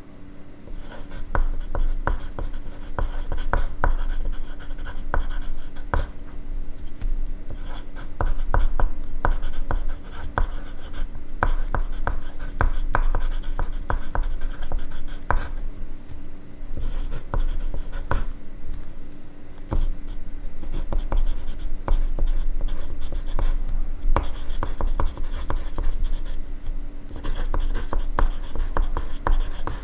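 Pencil writing on paper: quick scratchy strokes in runs, with brief pauses between them, over a faint steady hum.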